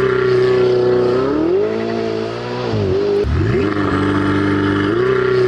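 Ferrari 488's twin-turbo V8 revving hard: the engine note climbs and holds, drops sharply about three seconds in, then climbs again.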